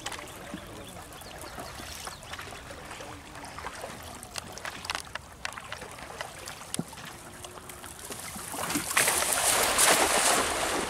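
A hand-thrown cast net lands on the river about nine seconds in, its weighted rim and mesh splashing across the water surface in a loud hiss lasting about two seconds. Before that there are only faint, scattered clicks.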